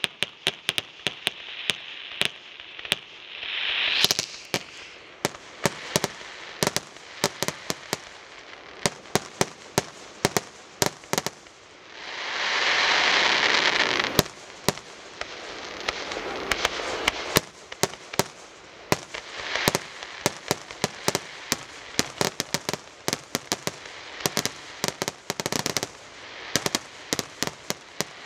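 Aerial fireworks bursting at close range: a rapid, irregular string of sharp bangs and crackles. A loud rushing hiss swells up a little before the middle and cuts off about two seconds later.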